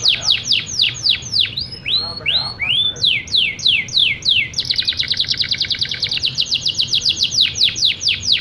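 Domestic canary singing one long unbroken song: rapid trills of falling notes, slower downward sweeps with a few short rise-and-fall notes about two seconds in, then a very fast, even trill from about halfway through, ending in slower sweeps.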